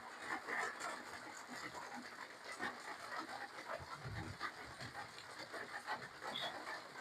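Close-up chewing and mouth sounds of someone eating seafood papaya salad: many small, irregular wet smacks and clicks, with a low thump a little after four seconds in.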